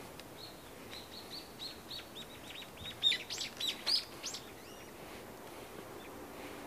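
A songbird singing: a run of short, high, downward-slurred notes that quickens, ending in a louder flourish of varied notes about three to four seconds in.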